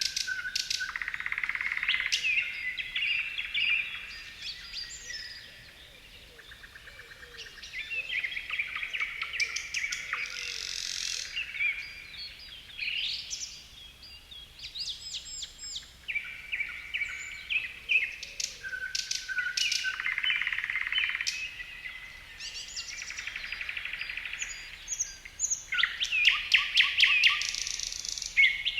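Several songbirds singing and chirping at once, with overlapping trills and whistled phrases, a brief lull a few seconds in and a dense burst of rapid trills near the end.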